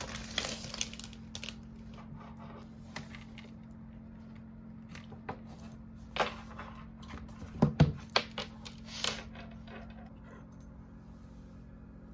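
Scattered handling noises: light rustling with intermittent clicks and taps, a few louder knocks bunched together about eight seconds in, over a faint steady hum.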